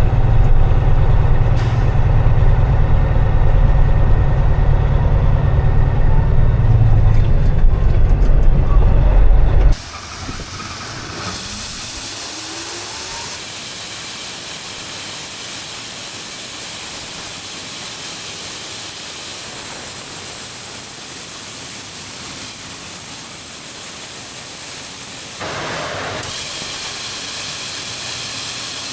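A truck's engine rumbling steadily for about ten seconds. It then gives way abruptly to a steady hiss of rushing air, with a brief rising whine shortly after the change.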